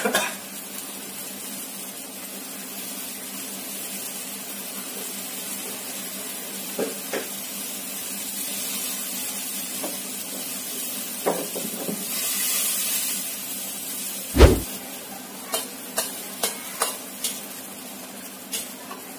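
Eggplant and green beans sizzling in an aluminium wok, a steady frying hiss that swells for a moment past the middle. A heavy thump comes about two-thirds of the way in, then a quick series of sharp clicks from the metal ladle against the wok.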